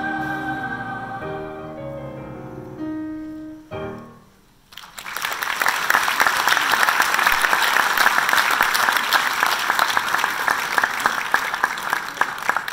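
School choir with piano accompaniment ending a piece on a held final chord, which dies away about four seconds in. A moment later the audience breaks into loud, sustained applause.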